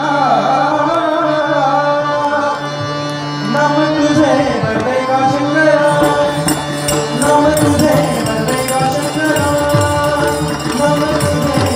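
Indian folk music for a Shimga dance: a voice singing a gliding melody over a steady drone, with drums like tabla. The drumming grows busier about six seconds in.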